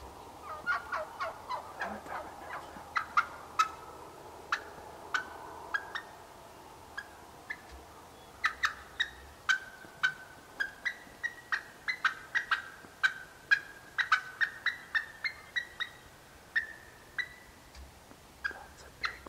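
Wild turkeys calling: a long run of short, sharp clucks and yelps, two to four a second, with a quieter stretch about halfway through.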